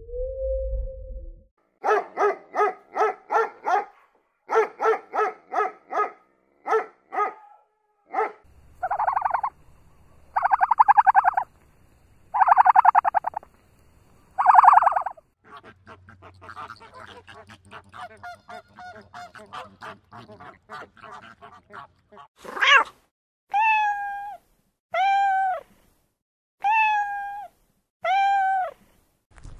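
A series of animal calls: groups of short, rapid pulsed calls, then several longer drawn-out calls, then a run of short cries that rise and fall in pitch near the end.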